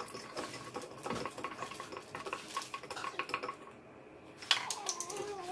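A utensil clinking and scraping against the inside of a glass jar as slime is stirred, in quick irregular taps. Near the end a louder wavering, voice-like call begins.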